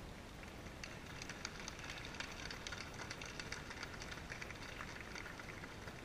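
Faint applause from a crowd of wedding guests: a dense patter of hand claps picks up about a second in and dies away near the end.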